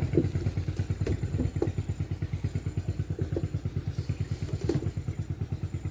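Boat engine idling with a steady low chugging pulse, about a dozen beats a second, with a few light knocks over it.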